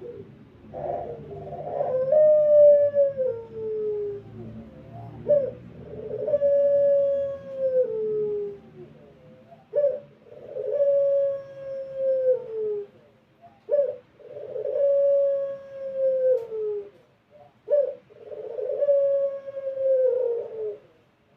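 Barbary dove (puter) of the long-cooing 'pelung' kind, cooing over and over: about five long, drawn-out coos roughly four seconds apart, each held then falling in pitch at the end, with a short note just before each.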